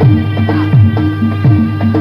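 Traditional-style music: a drum rhythm of low strokes that drop in pitch, over a steady low drone and a held melody line.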